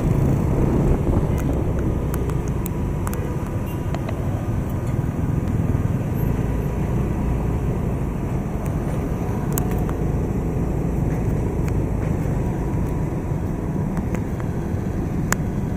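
Steady rumble of city street traffic, an even low noise without breaks, with a few faint clicks.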